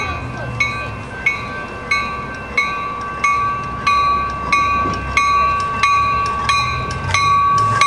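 Railroad grade-crossing bell ringing steadily, about three strikes every two seconds, over the low rumble of an approaching train.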